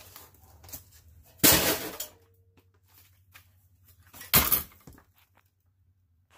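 Two loud clatters of sheet-metal computer parts handled and dropped on a steel workbench, about three seconds apart, the first ringing briefly.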